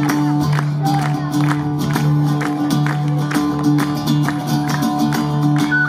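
Live band music: a sustained low drone held under a steady, regular drum beat.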